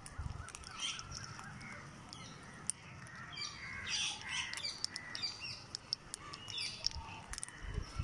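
Birds chirping and chattering in quick, overlapping calls, with many small sharp clicks from the feeding birds and squirrels.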